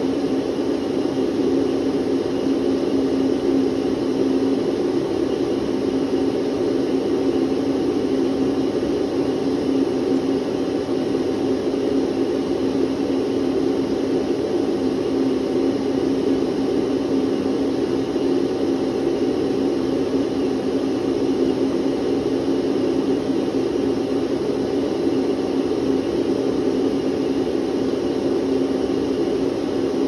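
Electric vacuum cleaner running steadily: an even rush of air over a constant motor hum, with no change in speed.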